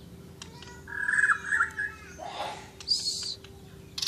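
Murai Borneo shama singing: a long whistled note and a rapid trilled phrase about a second in, then a sharp high note near the end, over a steady low hum.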